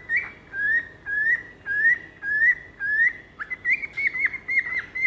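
Pet cockatiel whistling one short note over and over, each a quick upward slide, just under two a second. About three and a half seconds in, the notes turn quicker and choppier, about three a second.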